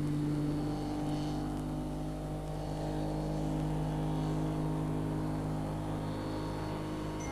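Steady low engine hum, a car motor running at an even speed without revving.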